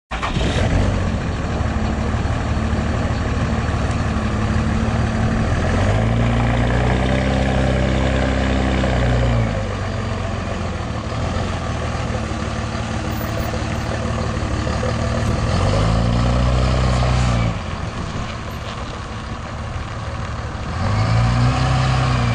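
2005 Dodge Ram 2500's 5.9-litre Cummins inline-six turbo diesel running as the pickup drives, its engine note rising and falling three times as it pulls away and eases off.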